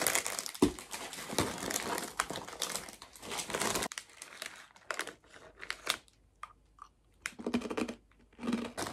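Plastic packaging crinkling and rustling as items are handled and lifted out of a gift box, with scattered sharper crackles. Busy at first, it thins out with short pauses about two-thirds of the way through, then picks up again near the end.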